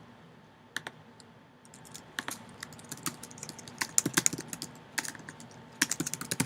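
Typing on a computer keyboard: scattered key clicks, coming in quick runs from about two seconds in and again near the end.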